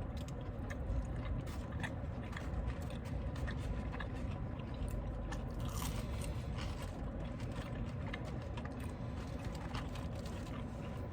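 Close-up eating sounds: chewing and crunching of fried chicken, with many small clicks and scrapes.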